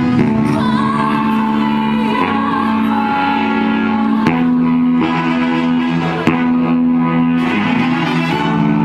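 Music: held chords that change every second or two at a steady loudness, with no speech over it.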